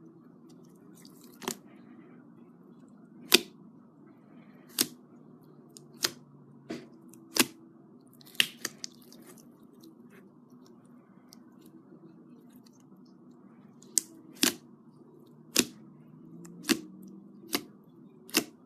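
Glitter slime being worked by hand, giving sharp, separate pops and clicks from trapped air, about a dozen of them, with a pause of several seconds in the middle. A steady low hum runs underneath.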